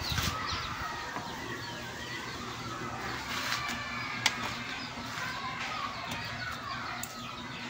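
Background of many small birds chirping, with a faint steady hum underneath and a single sharp click about four seconds in.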